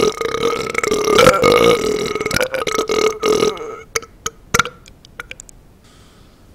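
A man's long, loud burp, held at a steady pitch, breaking up about three and a half seconds in into a few short sputters that die out by about five and a half seconds.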